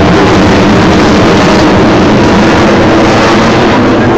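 Fighter jet's engine noise from a flying display overhead: a loud, steady jet roar.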